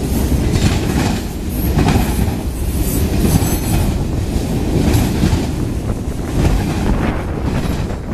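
Freight train cars (enclosed autoracks, then open gondolas) rolling past close by. Their steel wheels make a steady, loud rumble on the rails, with scattered metallic clanks.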